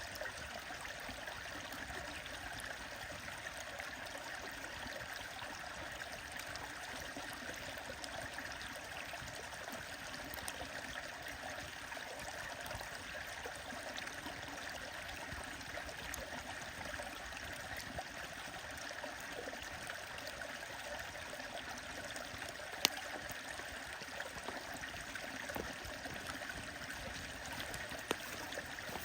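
A stream running steadily, with a few sharp pops from a crackling wood fire, one much louder than the rest late on.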